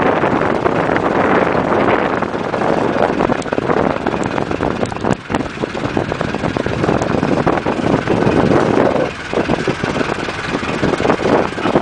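Fishing boat's engine running, mixed with rustling and knocking as a rope-bound lobster pot is handled and emptied on deck.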